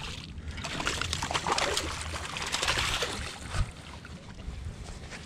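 A hooked fish splashing and thrashing at the water's surface beside a boat as it is scooped up in a landing net, with water sloshing and spattering. A single sharp knock about three and a half seconds in.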